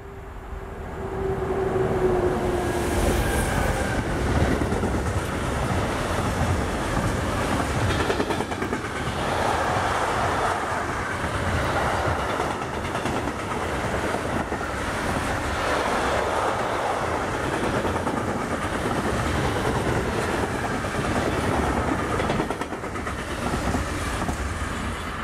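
Electric locomotive and a long train of container wagons passing: a humming tone from the locomotive in the first few seconds, then the wagons' wheels rumbling and clattering over the rails for some twenty seconds, dying away near the end as the train leaves.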